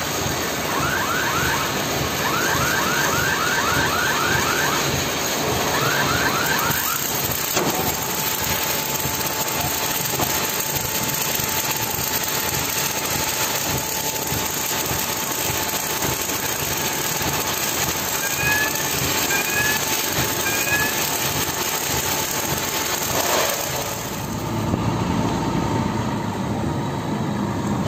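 Crane hoisting a steel box girder on its chain sling in a fabrication shed: a steady mechanical din, with runs of quick high squeaks in the first seven seconds and a thin steady whine after. Near the end the sound gives way to a truck engine running.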